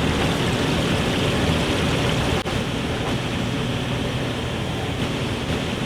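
Steady rushing background noise with a low rumble, briefly dipping about two seconds in.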